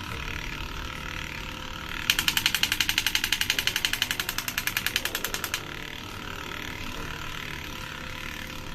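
Battery-powered toy sound effect: a steady electronic hiss with a fixed tone, and a fast, even rattling burst of about a dozen strokes a second starting about two seconds in and lasting about three and a half seconds.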